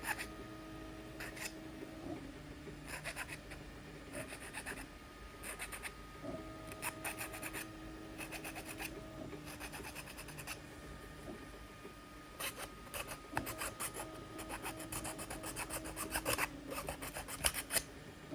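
Support material being scraped and picked off a 3D-printed plastic part with a hand tool: bursts of short rasping strokes, thickest in the last several seconds. A steady low hum comes and goes underneath.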